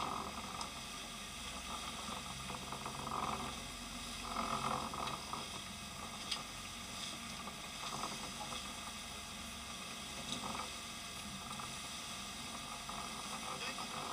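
Steady running noise of a sportfishing boat under way: engine drone mixed with the hiss and churn of its wake.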